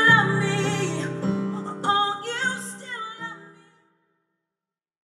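Closing bars of a song: a voice singing over strummed acoustic guitar, the music dying away and stopping a little under four seconds in.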